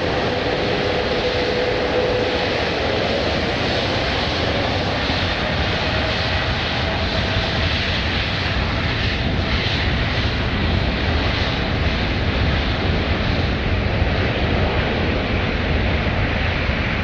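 Jet airliner engines: a steady, loud noise with a faint whine that fades over the first few seconds.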